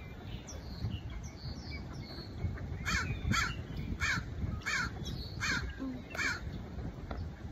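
A bird calling six times in a row, about two-thirds of a second apart, each call dropping in pitch, with fainter high chirps from other birds in the first couple of seconds. A low rumble of wind on the microphone runs underneath.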